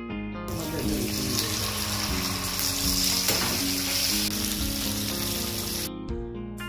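Masala-coated karimeen (pearl spot) shallow-frying in hot oil in a frying pan, a steady sizzle that starts about half a second in and stops about a second before the end. Guitar background music plays underneath.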